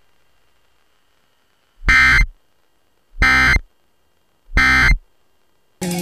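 Emergency Alert System end-of-message code: three short, identical bursts of SAME digital data tones, about 1.3 seconds apart, closing a required monthly test. A brief louder burst cuts in at the very end.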